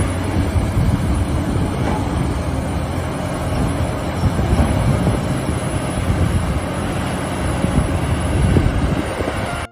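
Excavator engine running, a dense steady rumble with a heavy low end, starting and stopping abruptly.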